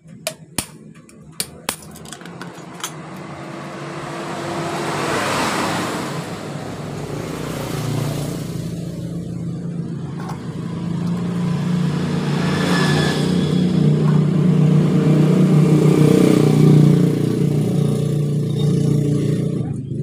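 A few sharp metal taps in the first three seconds, from a hammer striking the valve gear of a motorcycle cylinder head. Then a motor vehicle engine runs and revs, growing louder and swelling several times; it is the loudest sound.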